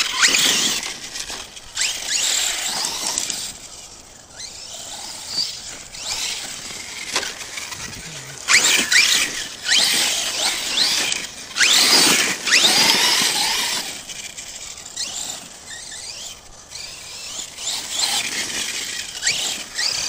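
Electric whine of an ARRMA Kraton 6S RC truck's brushless motor and drivetrain, rising and falling in pitch with repeated bursts of throttle. The loudest surges come a little past a third of the way in and again just past the middle.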